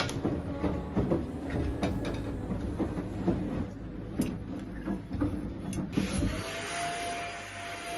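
Objects knocking and clattering as they are handled. Then, about six seconds in, a small electric motor starts up, its whine rising and settling into a steady hum with a hiss.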